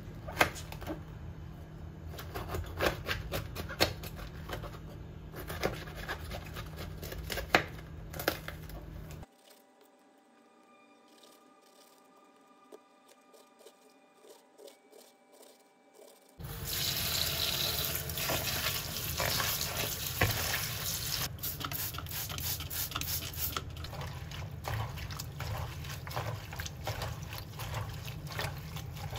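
Tap water running into a bowl at the sink as shredded cabbage is rinsed and stirred by hand, starting a little past the middle and the loudest sound. Before it, a quieter stretch with light knocks of a knife slicing through a cabbage on a cutting board.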